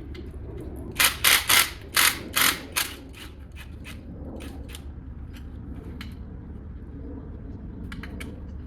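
A hand ratchet being worked on a fastener: six quick, loud ratcheting strokes about a second in, then scattered fainter clicks and knocks of tools over a steady low hum.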